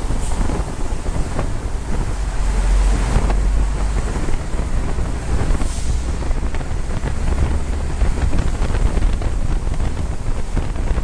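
Amphibious tour bus driving through a road tunnel, heard from inside the passenger cabin: a steady, loud low rumble of engine and tyres mixed with rushing wind noise.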